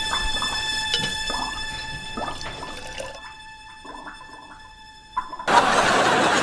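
Liquid bubbling and dripping in chemistry glassware, with a steady high tone held underneath, fading away after about three seconds. About five and a half seconds in, a loud crowd noise cuts in suddenly.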